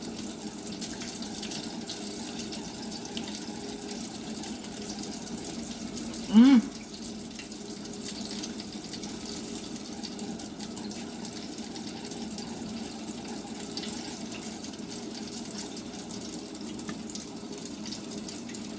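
A woman's short voiced 'ooh' about six seconds in, rising briefly in pitch, over steady background noise that runs throughout.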